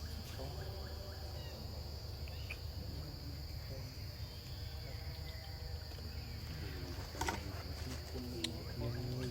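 Insects keeping up a steady high-pitched drone, with faint voices in the background and one sharp click about seven seconds in.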